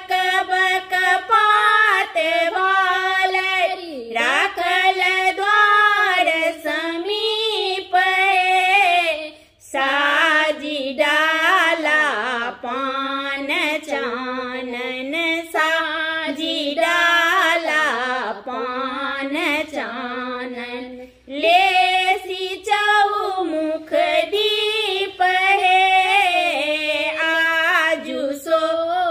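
Two women singing a Maithili wedding-ritual song (vivah geet) together, with no instruments. The voices break off briefly about a third of the way in and again about two thirds through.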